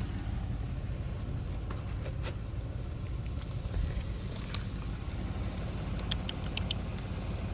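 Car engine idling steadily with its air conditioning running, heard from inside the car. A few light clicks, and a quick run of short high ticks about six seconds in.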